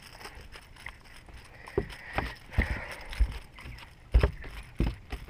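A freshly landed bream flapping on a boat's carpeted deck: about six irregular thumps starting about two seconds in, the loudest about four seconds in.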